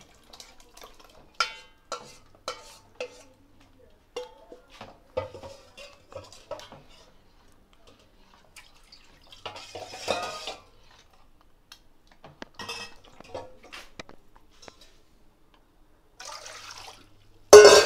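Metal spoon clinking and scraping against a stainless-steel pot as mashed dal is scraped in and stirred through a thick simmering curry, with a short stretch of scraping about ten seconds in. Near the end comes one loud ringing clang of a steel vessel.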